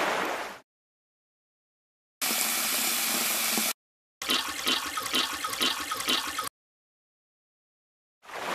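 Water sound effects, each cutting off cleanly into silence: water pouring out of the tank's drain into a bucket, then about a second and a half of tap water running, then two seconds of water filling and gurgling that pulses about twice a second, and near the end water pouring out again.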